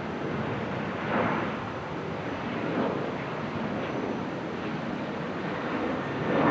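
Wind rushing over the microphone as a steady noisy roar. There is a stronger gust about a second in, and the level rises again near the end.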